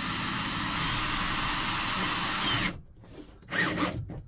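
Cordless drill driving a screw through a plastic ceiling panel into a wooden batten, running steadily and stopping suddenly a little over two and a half seconds in. A brief loud noise follows about a second later.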